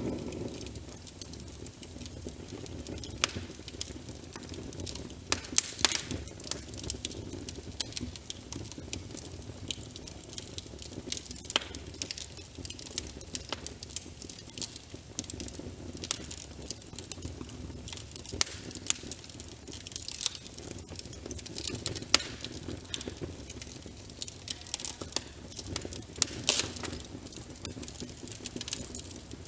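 Wood fire crackling in a fireplace, with frequent sharp pops at irregular moments, layered over steady rain pattering.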